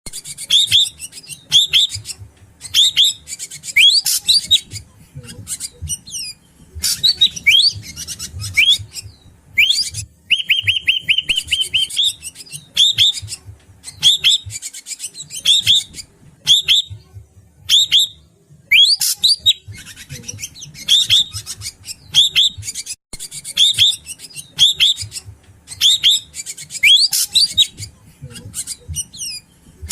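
Greater racket-tailed drongo (srigunting batu) calling, as a bird-lure recording: a string of short, sharp whistled phrases with sweeping notes, repeated about once a second, broken by a rapid trill about ten seconds in.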